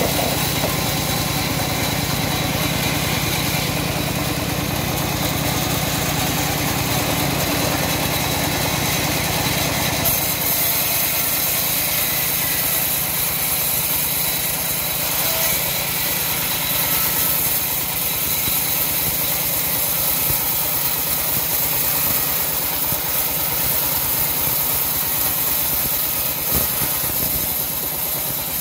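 Homemade vertical bandsaw mill running steadily while a log is fed through its blade. About ten seconds in, the low hum drops away and a higher hiss takes over.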